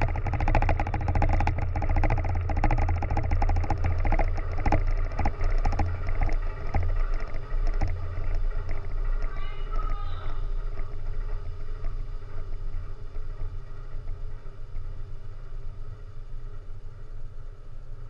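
A steady low engine drone with dense crackling over it for the first several seconds, the crackle thinning out and the whole sound fading gradually toward the end; a brief wavering, voice-like sound about ten seconds in.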